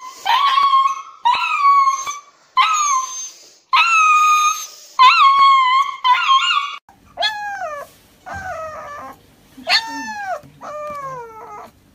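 A husky in a cone howling in about six loud, drawn-out calls as it is held down for an injection. About seven seconds in, a husky puppy takes over with shorter, quieter cries that each fall in pitch.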